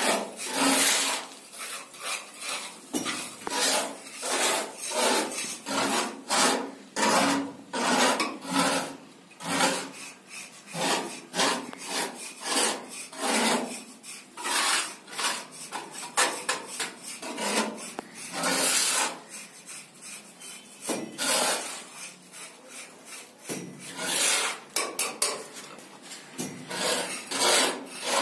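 A metal plastering tool scraped repeatedly along a cement plaster ceiling border, giving a rasping scrape in quick strokes, about two a second, broken by short pauses.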